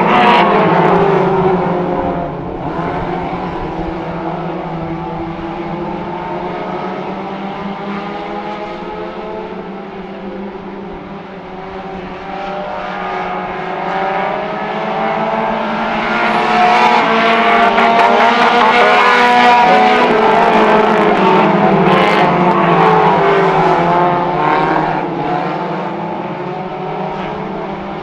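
Four-cylinder mini stock race car engines running hard, the pitch rising and falling as they accelerate and back off around the track. The sound dips a little before the middle and is loudest a little past it.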